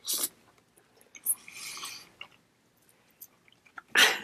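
Short rustles and small clicks of takeout food containers being handled: a sharp rustle at the start, a softer one a little over a second in, and the loudest just before the end.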